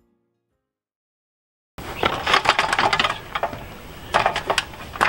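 Dead silence for almost two seconds, then a sudden busy run of sharp clicks, knocks and light metallic clatter close to the microphone, like tools or gear being handled.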